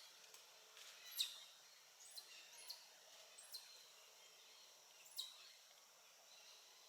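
Five short, high chirps, each dropping quickly in pitch, over a faint steady background; the loudest comes about a second in.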